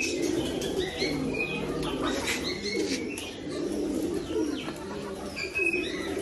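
A loft full of pigeons cooing continuously, with overlapping low rolling coos and short higher chirps over them.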